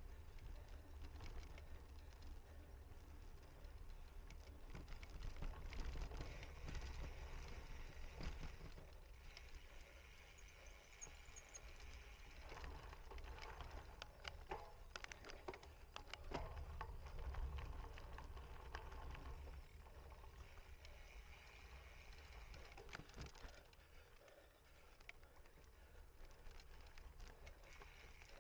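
Cyclocross bicycle rattling and clicking over rough ground, with a low steady wind rumble on the microphone; the clicks and rattles bunch together in the middle.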